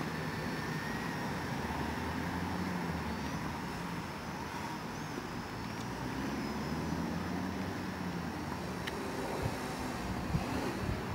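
MikroKopter quadcopter's electric motors and propellers whirring in flight, the hum wavering in pitch as the motor speeds change.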